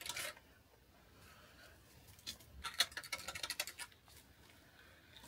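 Light scratching and tapping: a brief scrape at the start, then a quick run of scratches and clicks from about two to four seconds in.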